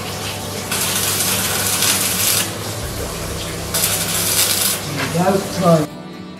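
Stick (arc) welder crackling and sizzling in two bursts, about a second in and again around four seconds in, as an anode is welded onto a steel narrowboat hull. A short wavering voice-like sound comes just before the end, then background music begins.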